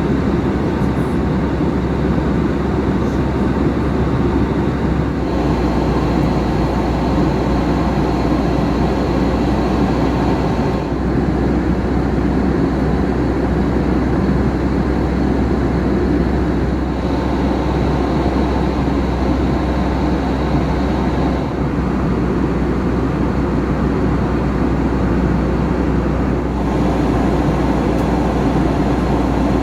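Steady in-flight cabin noise of an Airbus A321: engine drone and airflow rush with a constant low hum, changing slightly in character every few seconds.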